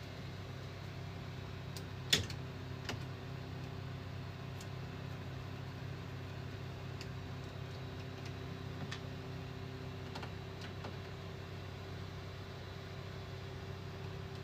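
A steady electrical or fan hum with a few held tones. One sharp click or knock comes about two seconds in, followed by a softer one and a few faint ticks.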